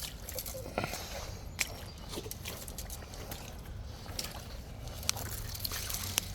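Boots squelching and sucking through deep, soft mud with each step, with scattered sharp clicks and crackles.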